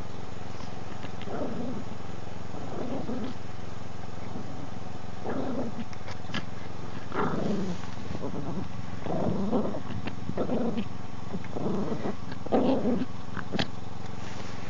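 Papillon dog breathing hard in short, noisy bursts, about eight at irregular intervals, as it pushes through deep snow close to the microphone.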